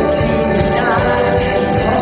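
A live progressive bluegrass band playing a song, with banjo, mandolin, acoustic guitar, electric bass and drums, and a male lead vocal over it.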